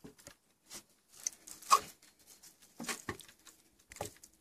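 A fillet knife cutting a walleye free from its carcass on a wooden cutting board, with scattered short clicks, crunches and knocks. The loudest comes a little under two seconds in.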